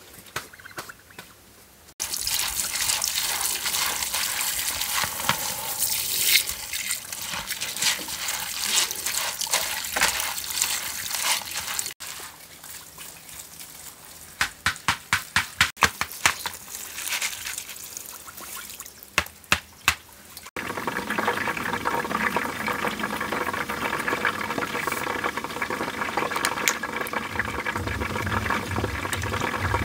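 Water from a garden hose running into a bowl of sunflower seeds as they are rinsed, with a run of sharp clicks partway through as the wet seeds are handled. A steady hiss follows in the last third.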